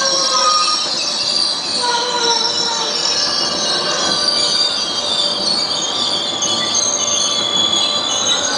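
Regional train's wheels and brakes squealing as it slows into the station: several high, shifting squealing tones over a steady rolling rumble.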